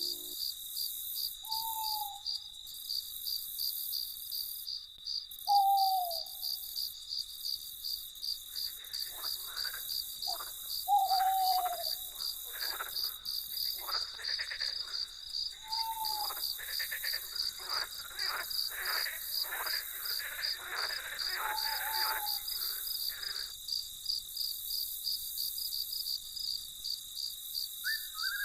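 Crickets chirping in a steady pulsing trill throughout. Over it, five short falling hoots from an owl, the loudest about 5 and 11 seconds in, and from about 9 to 23 seconds a dense run of rapid calls from night animals.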